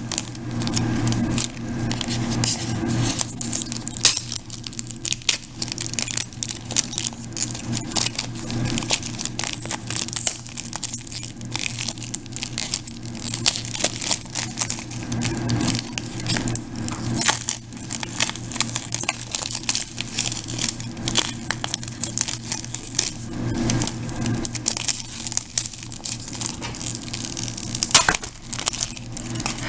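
Plastic shrink wrap being picked at, torn and peeled off a DVD case, with dense, irregular crinkling and crackling. The wrap is stubborn and slow to come off.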